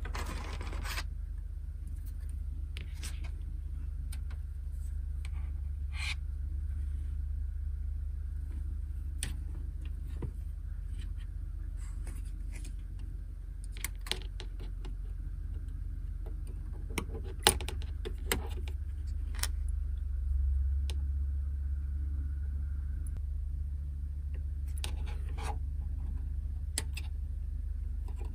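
Scattered small clicks, taps and scrapes of hobby tools and plastic model parts being handled on a workbench, over a steady low hum.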